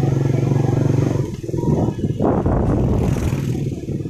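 Small motorcycle engine running steadily. About a second in, a rougher rush of engine and road noise takes over for a couple of seconds before the steady hum returns.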